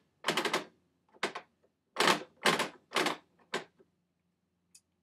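Plastic geared teaching clock (Watch It! Elapsed Time Clock) ratcheting as its hand is turned forward: about six short runs of rapid clicks over the first three and a half seconds, the gears stepping in 5-minute increments.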